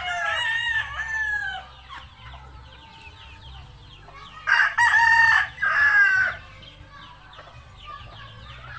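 A rooster crowing twice. The first crow trails off about a second and a half in, and a second crow starts about four and a half seconds in and lasts nearly two seconds. Faint high chirps sound between the crows.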